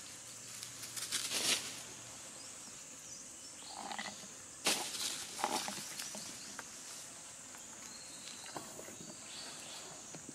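Forest background with a steady high-pitched insect drone, broken by two louder, brief noisy bursts, one about a second in and one near the middle.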